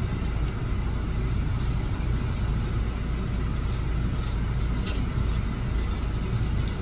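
Car idling while stopped, heard from inside the cabin: a steady low hum with a few faint clicks.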